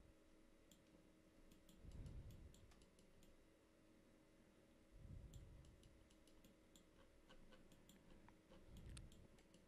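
Near silence with faint, scattered computer mouse clicks, irregular and some in quick pairs, and a few soft low thuds.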